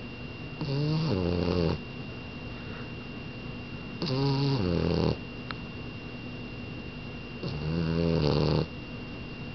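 French bulldog snoring in its sleep: three pitched snores about three seconds apart, each lasting about a second.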